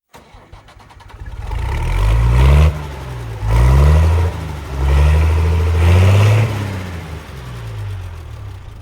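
An engine revving up three times, its pitch climbing with each surge and dropping off sharply, then winding down and fading.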